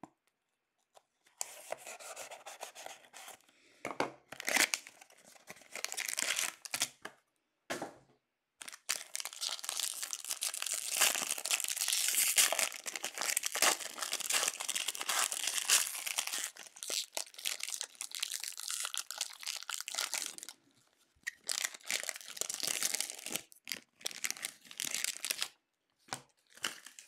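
Trading card packaging, a card box and a foil pack wrapper, being torn open and crinkled by hand. The ripping and rustling come in bouts, the longest running about ten seconds, with a few sharp snaps and loose ticks near the end.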